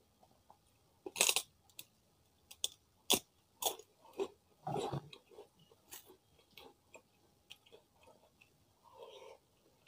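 Biting into and chewing a large, crisp kerupuk cracker close to the microphone: a loud crunch about a second in, then a run of crackling crunches that thins out into quieter chewing.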